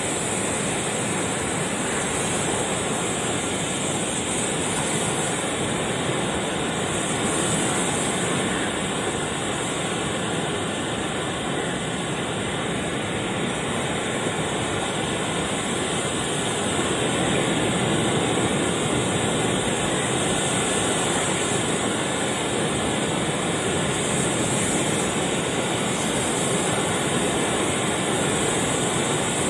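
Ocean surf breaking and washing up on a sandy beach: a steady rushing noise that swells a little now and then.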